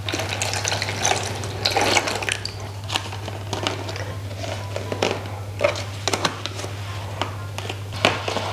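Water poured from a plastic bottle onto the heating pack in a self-heating hot pot's plastic tray, followed by plastic clicks and knocks as the black plastic lid is handled and set on. A steady low hum runs underneath.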